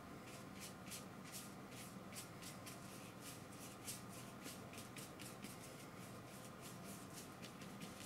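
Paintbrush bristles scrubbing and dabbing acrylic paint onto canvas: a run of faint, quick, scratchy strokes, several a second.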